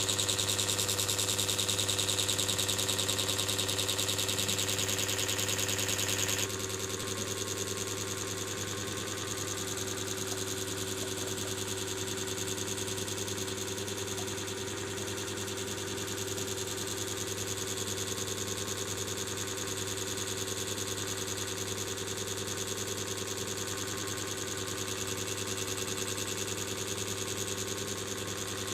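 Steady electrical hum with a low drone and a hiss; the hiss drops suddenly about six seconds in.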